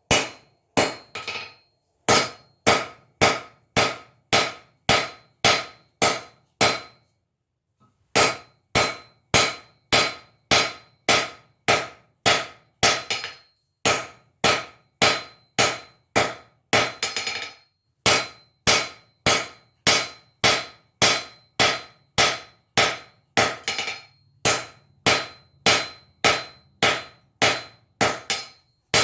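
Blacksmith's hammer striking hot iron on an anvil while forging a pintle, in a steady rhythm of about one and a half blows a second, each with a short high ring. The hammering pauses briefly twice, early on and about a quarter of the way in.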